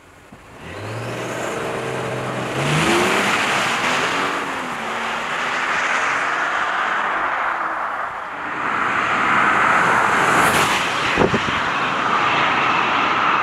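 2021 Audi A8 L 60 TFSIe's 3.0-litre turbocharged V6 accelerating hard from a standstill, its pitch rising and stepping down at upshifts. Later the car comes back at speed, engine and tyre noise building as it nears.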